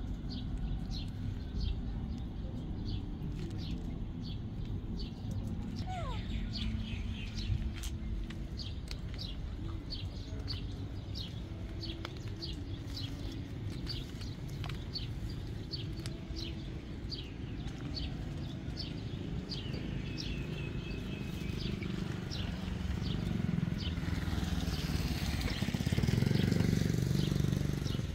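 A small bird chirping over and over in short, evenly spaced high calls, over a steady low outdoor rumble that swells louder near the end.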